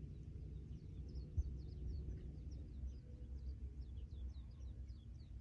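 Wind rumbling on the microphone, with a small bird singing a run of short, high chirps that each fall in pitch, from about a second in until near the end. A single low bump about a second and a half in.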